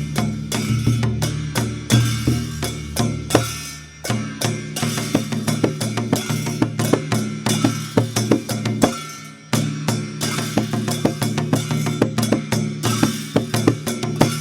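Dhime, the Newar double-headed barrel drum, played in a fast, dense rhythm of strokes over a ringing low drum tone, with a high shimmer above. The playing falls off briefly about four seconds and nine seconds in, between phrases.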